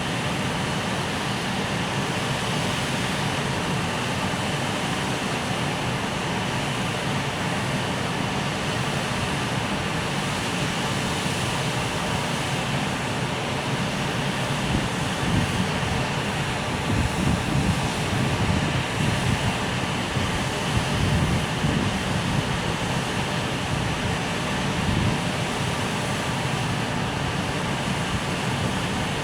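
Freight train of container wagons hauled by an EF510 electric locomotive, a steady rumble with louder, uneven low swells through the middle and second half.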